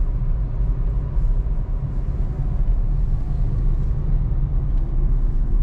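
Steady low rumble of a car driving along at road speed, heard from inside the cabin.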